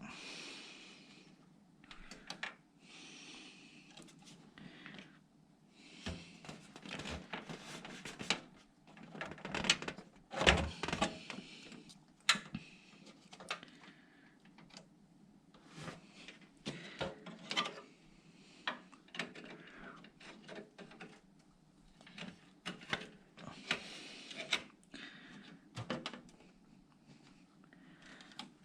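Irregular clicks, taps and knocks with brief scraping and rustling as a motherboard is worked into a PC case to settle it in place. The loudest knocks come about ten seconds in.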